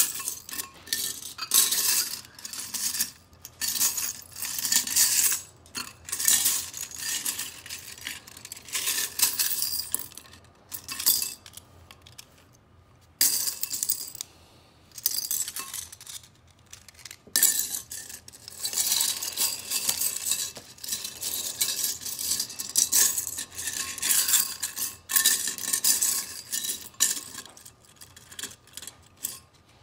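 Loose plastic LEGO bricks clattering against each other and the bowl as a hand rummages through them, in repeated bouts with short pauses.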